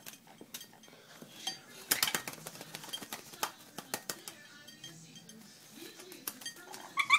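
A parrot bathing in a shallow plastic bowl of water, splashing and flicking water that patters and clicks on the bowl and the floor. The splashing is densest about two seconds in.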